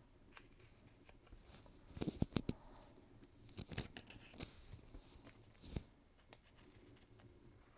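Small scissors snipping through strips of designer paper to trim off the excess: a quick run of sharp snips about two seconds in, another near four seconds, and a single snip near six seconds.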